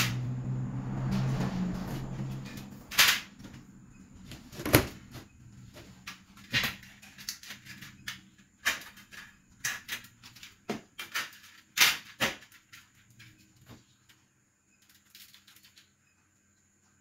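Irregular sharp clicks and knocks, about one a second, of light aluminium profiles and hand tools being picked up, handled and set down on a concrete floor. A low hum fades out over the first two seconds.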